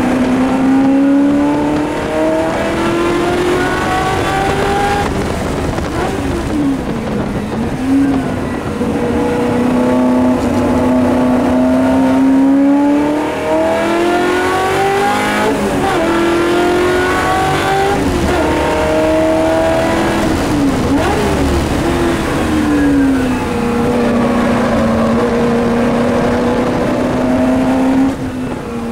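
Shelby Mustang GT350R's 289 V8 racing engine heard from the cabin under hard acceleration, its pitch climbing through each gear and falling away several times for braking and gear changes, with quick revs flicking up and down in between.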